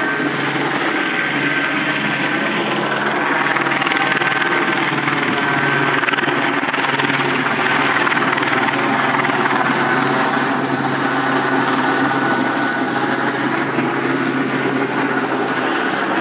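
Police helicopter flying overhead: a steady rotor-and-engine drone that swells slightly and eases off again.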